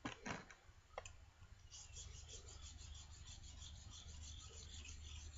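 A couple of light clicks, then a steel plane iron rubbed back and forth on a diamond sharpening plate in quick, even scraping strokes, lapping the blade.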